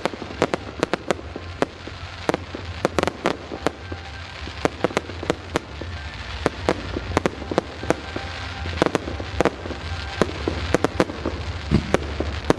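Fireworks display: a fast, irregular barrage of sharp bangs and crackling reports, several a second, from shells and batteries going off.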